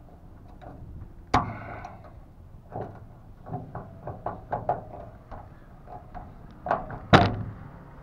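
Locking pliers (vise grips) gripping a rusted screw head on a truck door handle, clicking and knocking against the metal as the screw is twisted loose and out. Two loud knocks stand out, about a second in and near the end, with a string of smaller clicks between.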